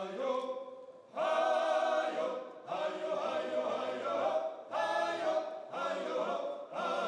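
Men's vocal ensemble singing a cappella into microphones: held chords sung in phrases of a second or two with short breaks between them, coming in loud about a second in.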